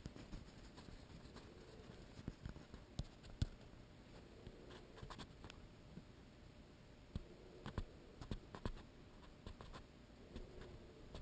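Faint room tone with scattered soft clicks and taps, in two clusters a few seconds apart: handling noise from a handheld camera.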